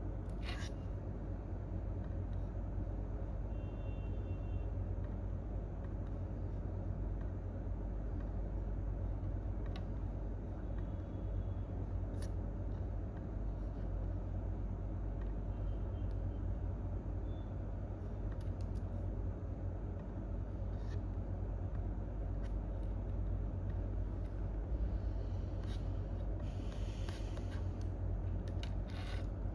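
Steady low rumble of office room tone with no typing, broken only by a few faint isolated clicks and a brief soft hiss near the end.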